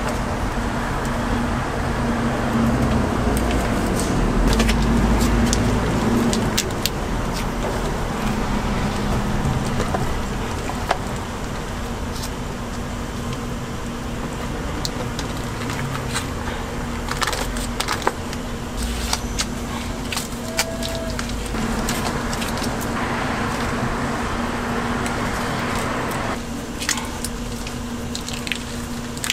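Bungeoppang being baked at a street stall: scattered metal clicks and clacks from the fish-shaped baking molds over a steady low hum.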